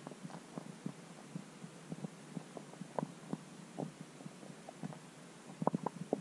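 Irregular muffled low knocks and taps, heard underwater through a submerged camera over a faint hum, with a quick cluster of knocks near the end.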